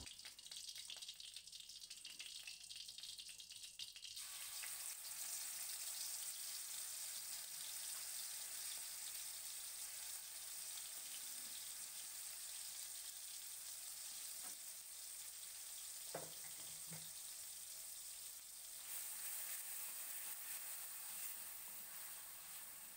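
Ground chili, shallot and garlic spice paste sizzling in hot oil in an aluminium wok. The sizzle starts suddenly about four seconds in, when the paste goes into the oil, and grows louder near the end as the paste is stirred with a wooden spatula.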